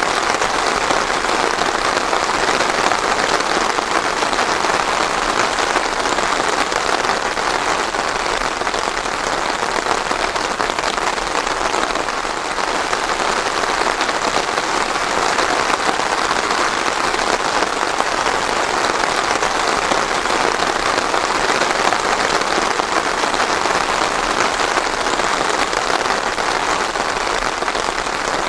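Steady rain falling on a surface, an even dense patter with no thunder.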